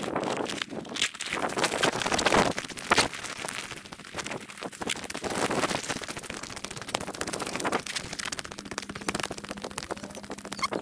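Rough, crackling noise on a body-worn GoPro's microphone while walking: wind buffeting the mic and the crunch and scuff of steps on a gravel footpath, with a louder burst about two to three seconds in.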